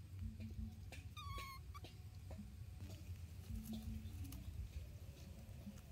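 Baby macaque giving one short, clear contact call about a second in, with faint ticks and a low hum around it.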